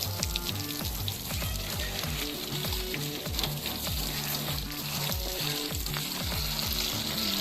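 Background music with a steady drum beat and held bass notes, without vocals, with a continuous hiss over it.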